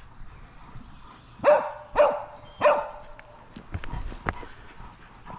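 A dog barking three times in quick succession, starting about a second and a half in.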